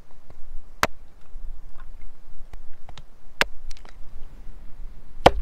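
Hatchet chopping kindling on a wooden chopping block: three sharp cracks of the blade striking and splitting wood, about two and a half seconds apart, the last one the loudest, with fainter clicks between them.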